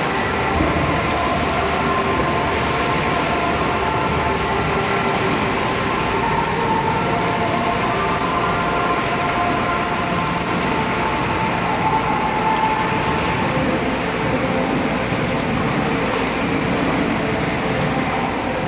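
Indoor swimming pool ambience: swimmers' strokes keep up a steady wash of splashing water in an echoing hall, with faint wavering tones underneath.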